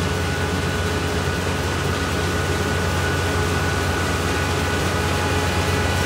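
Kubota ER448 four-row, 48-horsepower combine harvester running steadily under load while reaping rice: a constant low engine drone with a thin steady high whine and an even rush of machinery noise over it.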